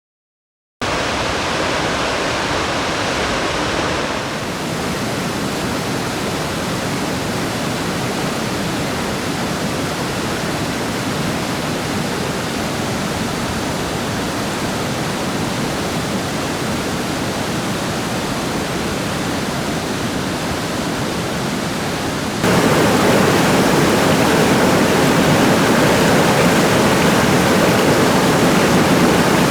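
Steady rushing of running water, starting abruptly about a second in, dropping slightly a few seconds later and getting louder near the end.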